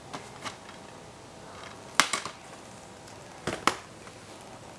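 A few short, sharp clicks over a quiet background: two faint ones near the start, then a loud click about two seconds in followed quickly by two softer ones, and another quick cluster of three about three and a half seconds in.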